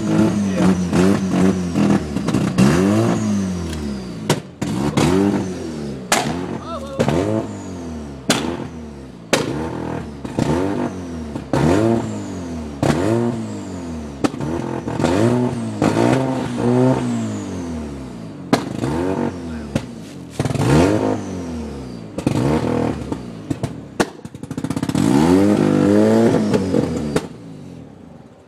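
Mazda RX-7 FC's twin-rotor 13B rotary engine running on a cold start, its throttle blipped again and again. Each rev rises and falls about every second or two, with short sharp cracks in between. A longer rev comes near the end before the engine sound falls away.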